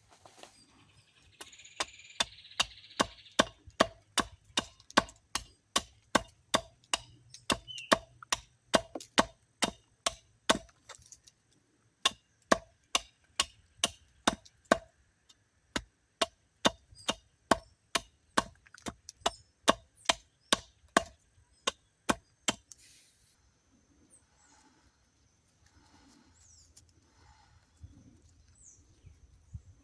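Wood being chopped: a steady run of sharp blows, about two a second, with a short pause about eleven seconds in, stopping a little after twenty-two seconds.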